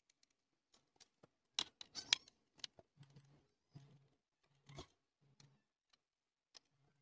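Faint, scattered clicks and scrapes of a Phillips screwdriver turning screws out of a coin slot's plastic housing, the sharpest ticks about one and a half to two seconds in.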